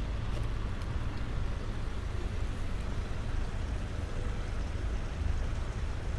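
Steady low rumble of city traffic under the even hiss of light rain falling on wet paving.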